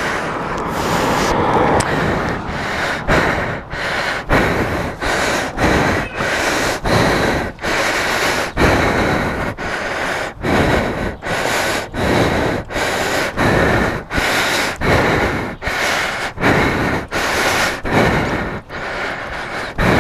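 A man's heavy, rapid breathing close to the microphone, in and out in a quick steady rhythm of about one breath every two-thirds of a second: panting from the exertion of pushing a motorcycle by hand.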